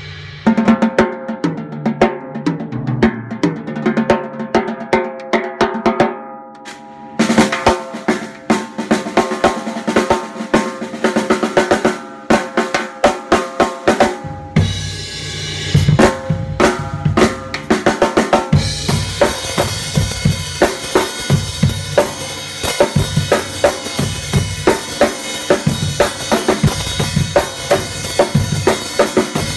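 A Fischer 14x8 hybrid snare drum with an acrylic shell and a solid wood block band, played with sticks in fast patterns, rolls and rim shots. About halfway in a bass drum joins, and a little later a cymbal wash as the snare plays in a full kit groove.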